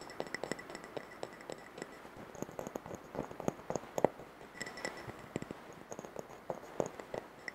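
Soft, irregular taps and clicks of fingers handling a glass jam jar, some with a faint glassy ring.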